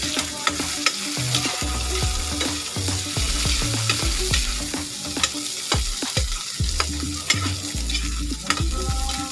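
Onions, ginger and chilies sizzling in hot oil in a wok, with a metal ladle stirring and scraping against the pan in frequent short clicks.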